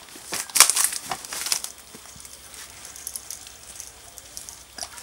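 Hand-held spray bottle squirting onto a mangy dog's skin: several short hissing sprays in the first second and a half, the loudest a little over half a second in, then faint rustling.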